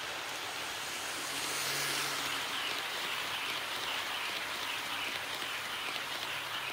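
KATO HO-scale model train, an EF58 electric locomotive pulling 12-series coaches, running past on its track: a steady rattle of the metal wheels on the rails with a faint motor hum, loudest about two seconds in as the locomotive comes by.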